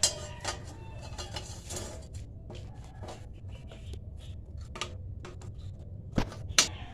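Steel bars clinking and knocking against each other and against the steel stove frame as they are handled and fitted, a scatter of sharp metallic clicks with brief ringing, loudest just at the start and twice about six seconds in. A steady low hum runs underneath.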